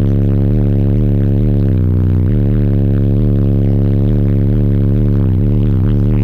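Two DD Audio 818 18-inch subwoofers playing a loud, deep sustained bass note that pulses slightly about twice a second.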